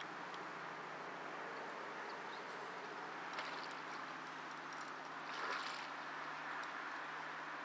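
A hooked pike thrashing at the water surface, faint against a steady background hiss and a low hum, with one louder splashing rush about five and a half seconds in.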